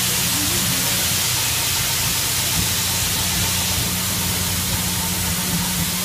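Steady loud hiss of steam from the LNER A4 Pacific steam locomotive Bittern as it moves slowly off, with a steady low hum underneath and no distinct exhaust beats.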